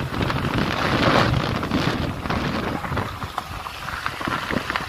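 Wind buffeting the microphone on a moving motorbike, with the engine running underneath; strongest about a second in, then easing.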